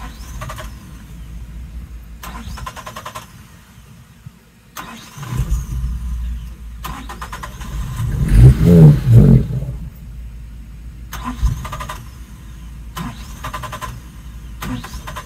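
A 1996 Suzuki Every van's small three-cylinder engine is cranked by its starter in repeated short bursts. About eight seconds in it fires and sputters louder for a moment but does not catch: a no-start, with the battery running weak.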